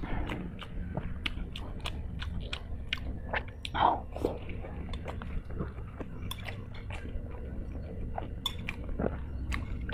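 A person chewing and eating spicy instant noodles close to the microphone, with a run of small wet clicks and smacks from the mouth and one louder mouth sound about four seconds in.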